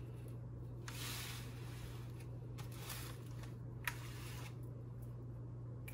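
Soft, intermittent rubbing and squishing as hands work seasoning over the skin of a raw turkey in a foil roasting pan, with a sharp tick near four seconds in. A steady low hum runs underneath.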